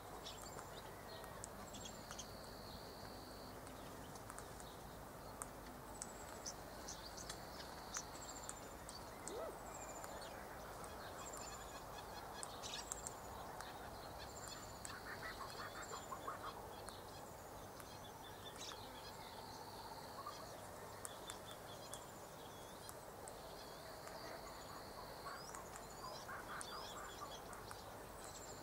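Faint bird calls: a short, high, falling note repeated about every two seconds, and a longer high buzzing note every few seconds, with occasional light clicks.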